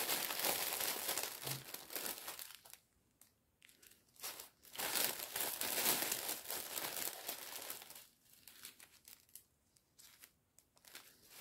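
Small plastic zip bags of diamond-painting drills crinkling as they are handled and sorted, in two main stretches of rustling with a short pause between and fainter rustles near the end.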